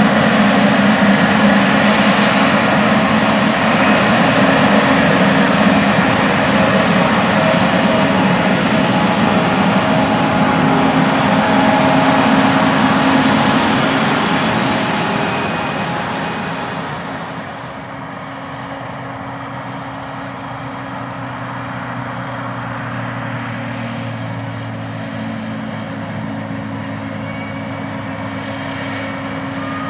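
John Deere S780 combines' diesel engines running as the machines travel. The sound is loud for the first half, fades over a few seconds from about fourteen seconds in, and leaves a quieter, steady engine sound.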